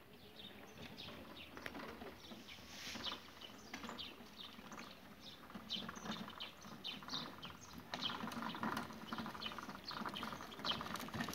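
Small birds chirping in many short, high calls. A faint low hum joins in over the last few seconds.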